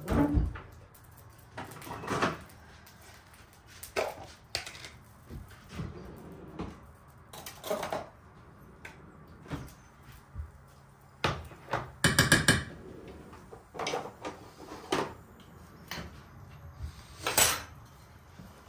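Kitchen handling sounds: scattered knocks and clicks as a jar of tomato paste is opened, its plastic lid set down, and paste spooned into a frying pan, with a short clatter about two-thirds of the way through.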